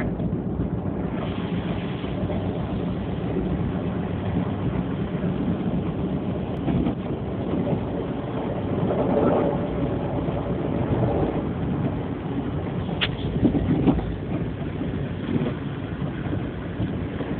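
Steady rumble of a boat under way, with wind buffeting the phone's microphone and a couple of short knocks near the end.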